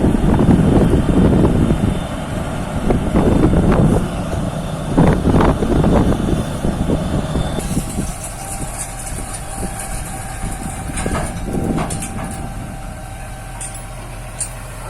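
Heavy vehicle engine running, louder and rougher for about the first seven seconds, then dropping to a lower, steadier level with a faint steady whine.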